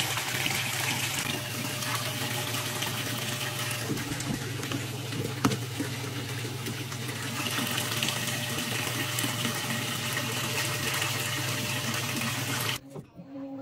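Top-load washing machine filling: water pours from the fill inlet into the soapy tub as a steady rush with a low hum beneath it. It cuts off suddenly near the end.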